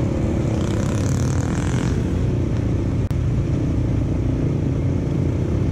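ATV engine running steadily while riding along a road, with a brief dropout about three seconds in.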